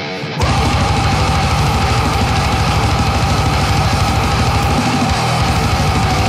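Heavy metal band recording with distorted instruments and fast, dense drumming. The full band comes back in about half a second in after a short drop, with a long held high note over it.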